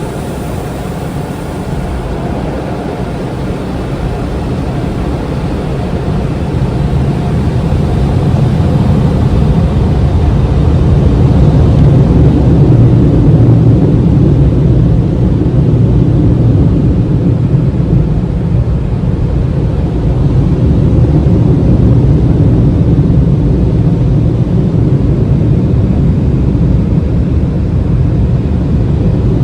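Automatic car wash heard from inside the car: a loud, steady rumbling wash of water and machinery over the body, swelling over the first ten seconds and then holding.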